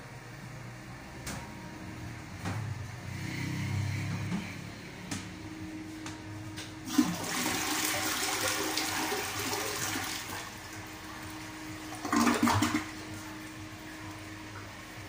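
Edesa Evolution tank toilet flushing: a sudden rush of water starts about seven seconds in and swirls for about three seconds, then dies down, with a brief louder burst of water noise about twelve seconds in.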